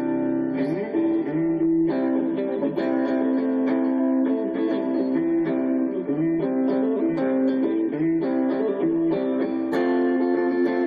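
Hadean EG-462 Stratocaster-style electric guitar played through a Roland Micro-Cube amplifier on the neck-and-middle pickup setting. Chords are strummed and left to ring, with a new strum every second or so.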